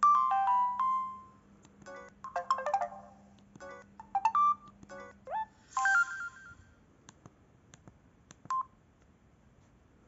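A Samsung SGH-E250 mobile phone's speaker playing its message alert tones, one after another, each a short electronic melody of a few quick notes. Near the end come a few faint clicks and one brief beep.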